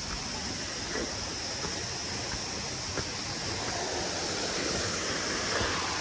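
Steady, even rush of a waterfall, with a few faint footsteps on concrete steps.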